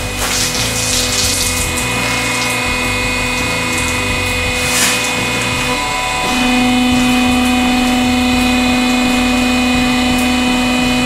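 Hydraulic press pump motor running with a steady hum that gets louder about six seconds in as the ram lifts back up. A hiss of spraying cola from the burst bottle comes near the start.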